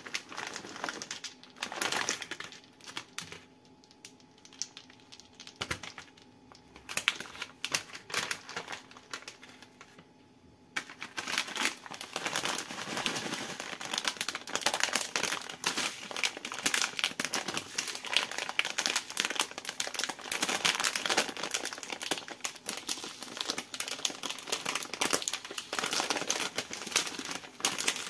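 Plastic candy bags crinkling in the hands, sparse and quieter at first. From about eleven seconds in, a plastic jelly-gum bag is squeezed and worked open with dense, continuous crinkling.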